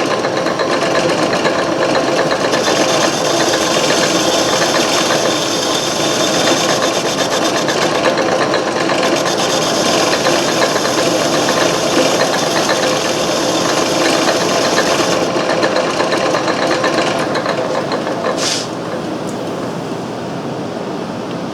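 Antique Garvin metal lathe running steadily while its cutter takes a facing cut across the spinning steel stock. A higher hiss of cutting rises about 3 seconds in and eases off about 15 seconds in. A brief sharp sound comes near the end, after which only the quieter running of the lathe is heard.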